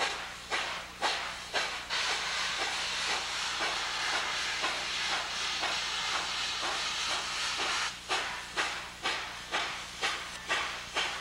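Steam locomotive No. 614 working, its exhaust chuffing in an even beat of about two a second. For several seconds in the middle a steady hiss of steam covers the beats, and then the chuffing returns.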